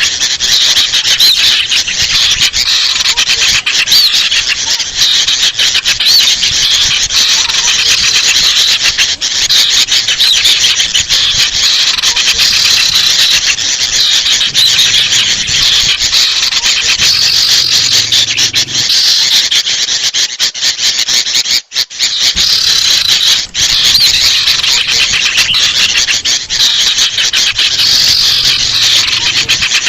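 Dense, continuous agitated chattering and squeaky calls of small birds: a bird-lure recording layering noisy sooty-headed bulbul (kutilang) alarm calls with noisy sirtu calls, used to attract small wild birds. The calls break off briefly about two-thirds of the way through.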